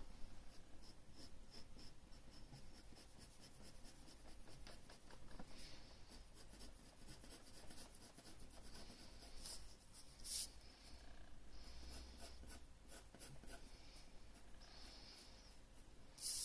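Graphite pencil scratching on drawing paper in quick, short shading strokes, faint, with a few louder strokes, one about ten seconds in and one near the end.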